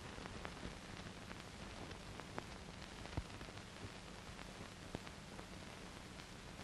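Faint steady hiss with scattered light clicks and crackles: the surface noise of an old film soundtrack recording, heard while the music is paused.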